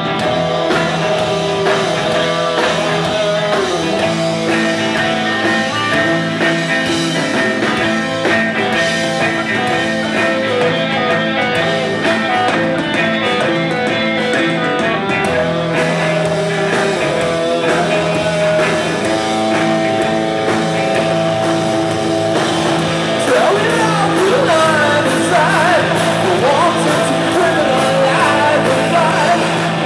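Live rock band playing loudly: distorted electric guitars, bass guitar and a drum kit with cymbals. The music gets a little louder over the last several seconds, with a line that bends up and down in pitch.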